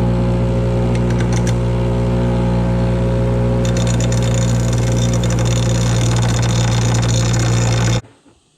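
Electric grinder running steadily and grinding down the corners of a clamp to widen its opening. The grinding turns harsher about halfway through, and the sound cuts off suddenly near the end.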